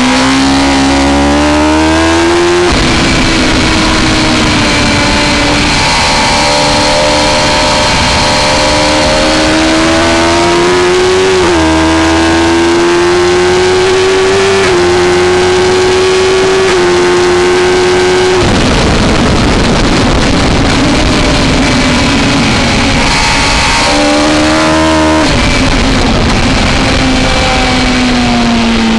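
Suzuki GSX-R1000 K3's inline-four engine at racing speed, heard from a camera on the bike: the engine note climbs and drops several times as it upshifts, then a few seconds of rushing wind noise drown the engine before it climbs again and falls away near the end.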